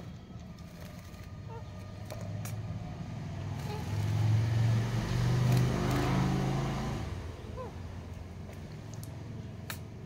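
A motor vehicle passing by: a low engine hum swells to a peak about five to six seconds in, then fades away.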